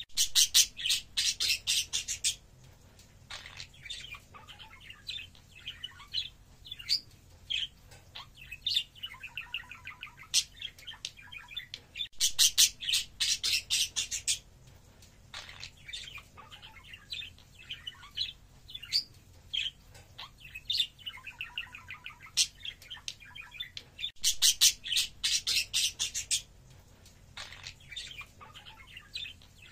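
Budgerigar warbling and chirping, with three loud bursts of very fast chattering about twelve seconds apart.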